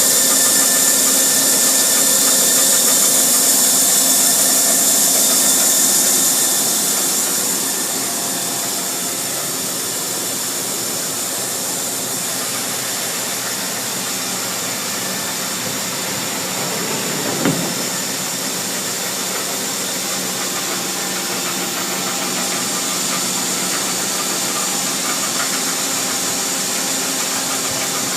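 Mazak Slant Turn 40N lathe's geared spindle running steadily, with a slight whine and mechanical gear noise, sounding okay for the machine's age. It drops to a quieter level about seven seconds in, and there is a single brief knock about 17 seconds in.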